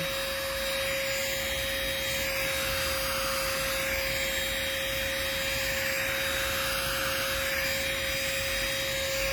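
Chuboor handheld car vacuum running steadily on upholstery, sucking up pet fur, with a constant whine over its airflow noise.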